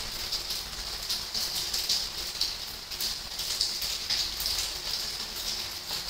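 Rain falling steadily: a continuous hiss with irregular, slightly louder taps of drops hitting a surface.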